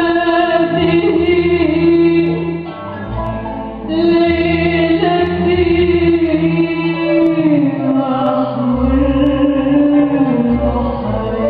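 Live Arabic orchestral music: the string section and singing carry the melody in long held notes over a steady low bass. It drops back briefly about three seconds in, then swells again.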